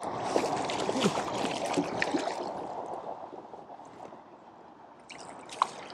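A hooked carp splashing and thrashing at the surface of shallow margin water, busiest for the first two seconds and then dying down, with one sharp tap near the end.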